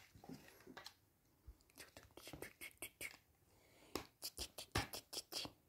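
Faint scratching and clicking of a plastic dog bowl being handled and nudged, with a quicker run of sharp clicks in the last second and a half.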